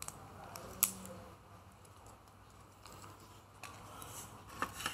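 Fingers handling a small folded paper seed packet over a clear plastic tray: light clicks and paper crinkles, with one sharp click about a second in as the loudest, and a few more near the end.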